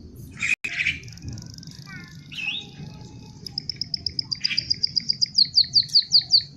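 White-headed munia (emprit kaji) singing a canary-like song. A brief harsh chirp about half a second in gives way to a long, high, thin note. From about three seconds in comes a fast run of repeated notes that quickens and turns into sharp down-slurred chirps near the end.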